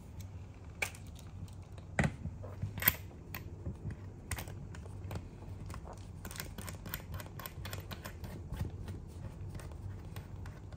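Light metallic clicks and taps as a pressure gauge's threaded coupler is screwed by hand onto a fitting on a hydraulic hand pump's manifold block. Two sharper knocks come about two and three seconds in, then a quick run of small ticks.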